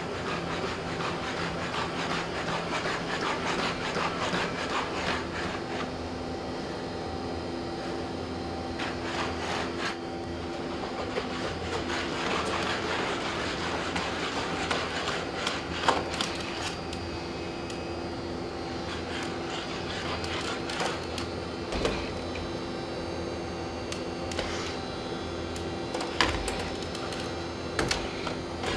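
Boston Dynamics SpotMini quadruped robots' electric joint motors whining steadily, with scattered taps and clicks as their feet step on the hard floor and the arm works the door.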